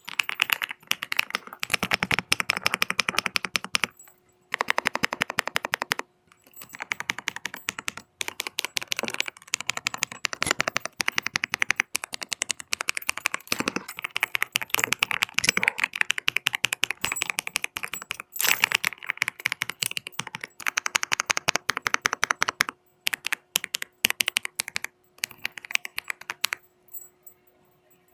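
Fast typing on a Kreo Swarm wireless mechanical keyboard: rapid runs of key clicks with a few brief pauses, stopping near the end.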